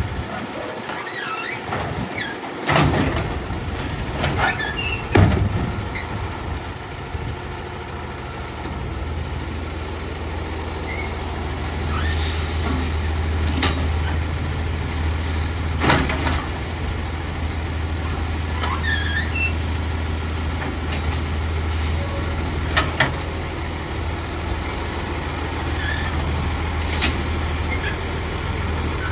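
Autocar ACX garbage truck's engine running while its Heil automated side-loader arm dumps a cart and reaches for the next. The steady low drone grows louder about ten seconds in and holds, and there are several sharp clanks and bangs from the arm and the plastic cans.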